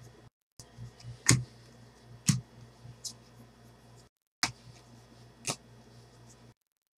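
Trading cards flipped through by hand, their edges snapping sharply against each other four times or so, with a low steady hum underneath.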